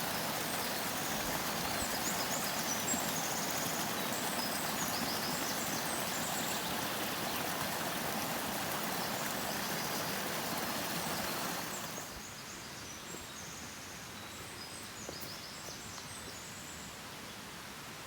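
Steady rushing of flowing water, like a forest stream, with birds chirping high above it. About twelve seconds in, the rushing drops suddenly to a quieter hiss while the chirping goes on.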